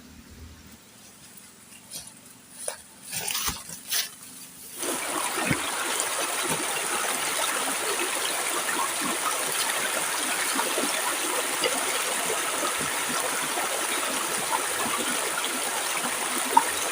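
A few scattered knocks and clicks over quiet forest background, then about five seconds in an abrupt cut to a steady, dense pattering of water, full of tiny splashes, that carries on unchanged.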